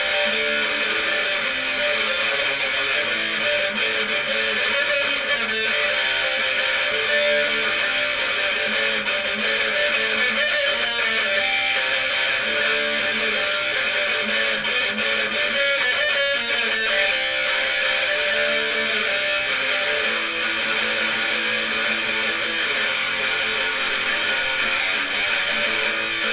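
Electric guitar played through a Marshall 5210 solid-state amplifier, a continuous instrumental passage with no pauses.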